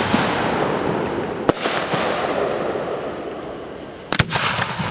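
Aerial firework shells bursting: two sharp bangs, about a second and a half in and near the end, over a fading rumble. The second bang is followed by a quick run of crackles.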